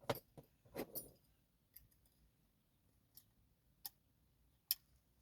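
Sparse small metallic clicks of a dimple lock pick and tension tool working the pins of an Avocet ABS lock cylinder, about seven ticks spread over the few seconds, the sharpest one near the end.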